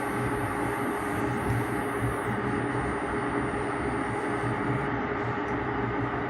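3D printer running: a steady mechanical hum and whir with low tones that shift slightly as its motors move.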